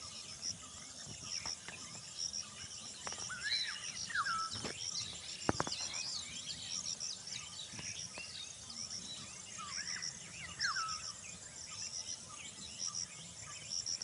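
Rural outdoor ambience: insects chirping high in a steady pulsing rhythm, with birds calling in short rising and falling chirps throughout. A couple of sharp clicks come about five and a half seconds in.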